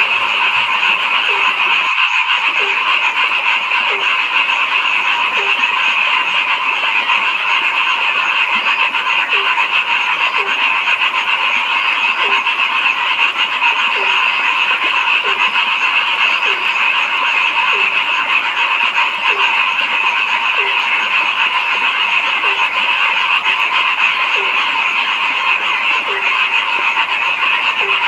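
A dense chorus of frogs calling, a steady trilling mass of high calls, with one lower-pitched short call repeating about every second and a half. There is a brief dropout about two seconds in.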